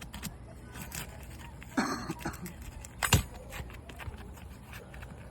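Roof shingles being worked loose by hand and tool: a short scraping rustle about two seconds in and a sharp knock about a second later, over a steady low background rumble.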